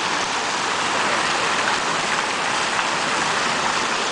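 The Tyler Davidson Fountain's water jets splashing steadily into its stone basin, an even, unbroken splashing of falling water.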